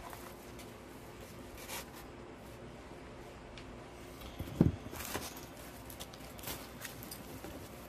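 Rustling and light clicking of artificial greenery stems being handled and pushed into floral foam, with a single dull thump about halfway through.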